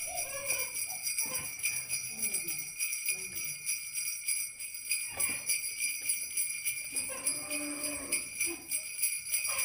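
A steady, high jingling that runs without a break, like small bells shaken continuously, with faint warbling sounds underneath.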